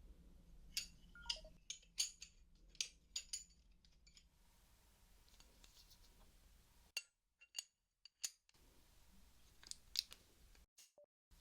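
Metal socket wrench clicking and clinking: a few clusters of sharp, faint metallic clicks, each with a short ring.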